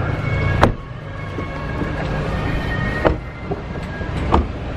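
A car engine running steadily at the kerb, with three sharp clicks and knocks from car doors and door handles being worked, the last near the end.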